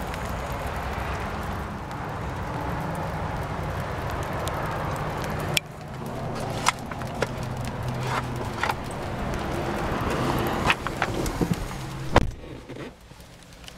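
Steady hiss of rain and outdoor noise coming in through an open car door, with scattered clicks and knocks from handling inside the car. About 12 seconds in, a car door shuts with a loud knock and the sound drops much quieter.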